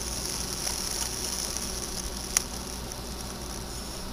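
Eggs sizzling in a cast iron skillet over a twig fire, a steady high hiss, with one sharp click about two and a half seconds in.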